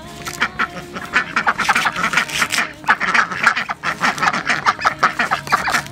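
A flock of ducks quacking in quick, rasping calls, mixed with the crackle of fresh corn husks being torn off an ear by hand.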